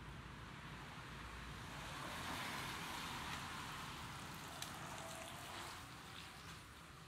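A car passing on a wet road: its tyre hiss swells up over a couple of seconds and fades away by about six seconds in.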